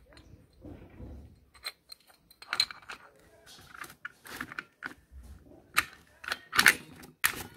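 Motorcycle drum-brake shoes and their coiled return springs being worked onto the brake panel by hand: irregular metallic clicks, clinks and short scrapes, the loudest ones coming in the last two seconds.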